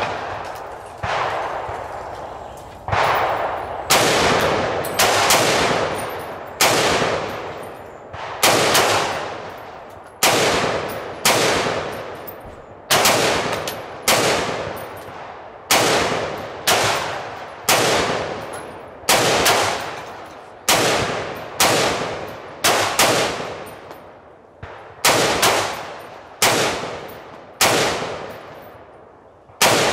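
Gunshots at a shooting range, fired one at a time at an uneven pace of roughly one a second, each crack followed by a long echoing tail.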